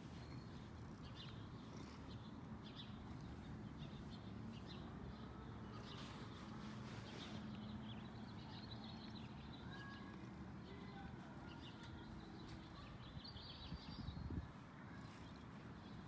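Faint outdoor ambience with birds chirping now and then over a low steady hum, and a brief rustle with a soft thump near the end.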